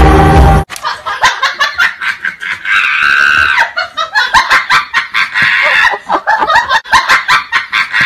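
A young man laughing hard in quick, breathy bursts, several a second, with a longer held squeal about three seconds in. Music from the previous clip cuts off abruptly just after the start.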